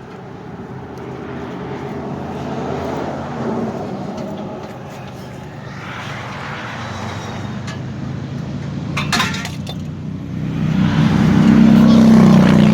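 A car engine runs steadily and grows louder over the last two seconds. A short burst of metallic clinking comes about nine seconds in.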